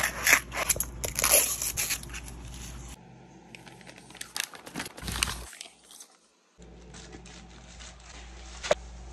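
Plastic wrapping crinkling and rustling as vacuum-mop parts are unpacked by hand, with scattered clicks. It is loudest in the first two seconds, breaks off into a moment of silence about six seconds in, and ends with one sharper click.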